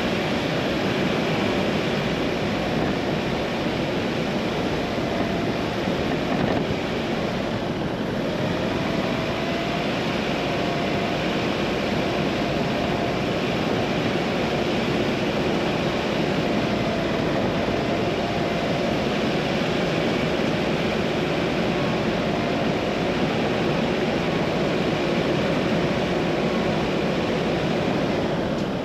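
A car driving along a country lane: a steady drone of engine and tyre noise on the road, with a faint humming engine note that wavers slightly.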